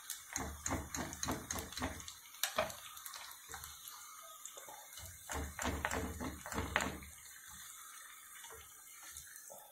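Battered cauliflower deep-frying in a pan of hot oil with a steady sizzle. Repeated clicks and knocks come from a wire spider skimmer and a wooden spoon as the fried pieces are lifted out. The knocking stops about seven seconds in, leaving the sizzle.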